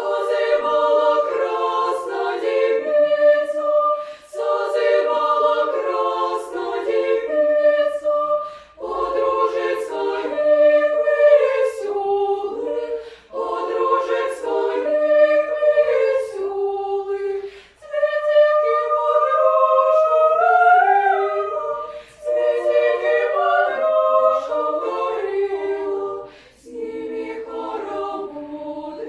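Children's vocal ensemble singing an arrangement of a Russian folk song a cappella in several voice parts. The singing comes in phrases of about four seconds, broken by short breaths.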